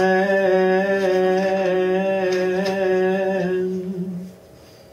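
Unaccompanied male voice singing one long held note, closing on the word "again", which fades out about four seconds in.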